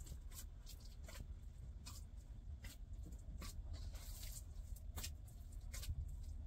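Dough being kneaded by hand in an aluminium basin: short, irregular sounds of the hands pressing and folding it, about one or two a second, over a low steady rumble.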